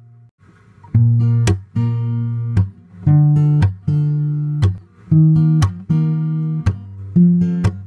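Background music: plucked acoustic guitar, coming in about a second in after a brief gap and playing a run of picked notes and chords.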